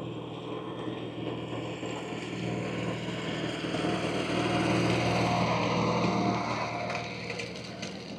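An engine running steadily, growing louder for a few seconds in the middle and then easing back.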